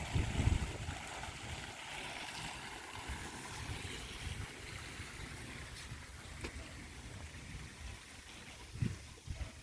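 Moving water making a steady rushing hiss, with a few low thumps about half a second in and again near the end.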